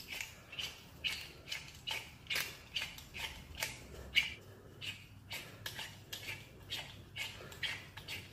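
A small metal tool scraping repeatedly against an old bathroom-sink faucet, in short, even strokes about two or three a second, as the faucet is worked and cleaned for repair.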